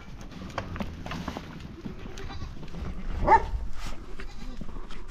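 Goats bleating, with one loud bleat rising in pitch about three seconds in, and scattered short knocks around them.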